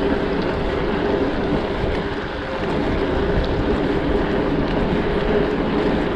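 Steady wind rushing over the microphone of a moving bicycle, with the rolling noise of a dirt jump bike's tyres on pavement underneath.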